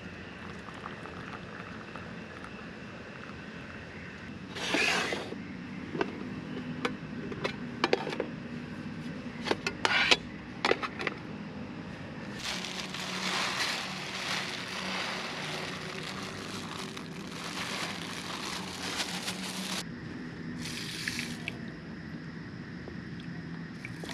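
Clinks and clatter of camp cookware being handled, then water poured into an aluminium mess tin for about seven seconds.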